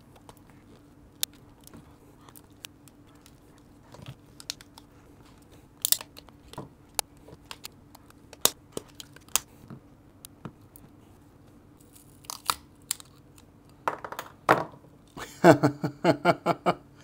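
Side cutters biting into and snapping the plastic and rubber shell of a Lytro camera as the case is broken open: scattered sharp cracks and crunches, with a quick run of louder pulsed sounds near the end.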